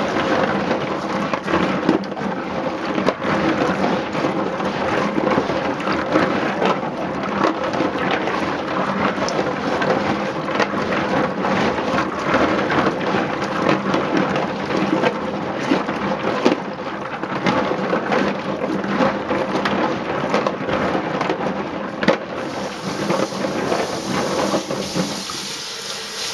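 Black walnuts in their shells being stirred by gloved hands in a stainless steel sink of water: a dense, continuous clatter of nuts knocking together and against the steel, with sloshing water. Near the end a steady hiss of running water comes in.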